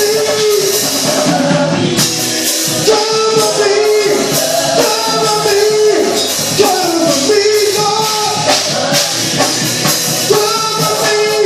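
Gospel praise singing: voices hold and bend a sung melody over loud instrumental accompaniment with a steady percussive beat.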